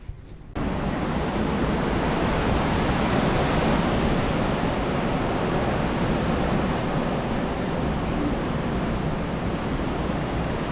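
Hurricane wind blowing hard and steadily, a dense rushing noise that starts abruptly about half a second in.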